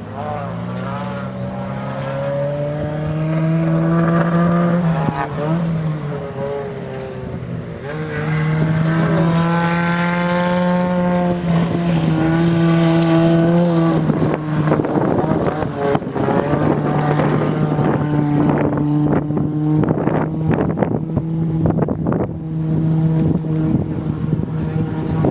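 Rally car engine revving hard as the car accelerates on a gravel stage. Its pitch climbs, drops and climbs again through several gear changes. In the second half many short clicks and pops sound over the engine.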